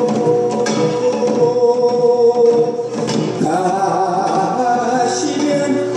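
A man singing long held notes in a Korean folk chant, with occasional drum strokes from janggu and buk. The sung pitch steps up about halfway through.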